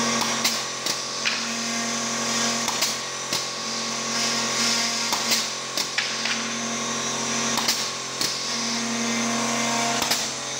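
Automatic beehive-frame drilling machine running: a steady motor hum, with a drilling tone that rises and drops away every couple of seconds. Sharp clicks and short hisses come from its pneumatic cylinders as each frame bar is clamped and drilled.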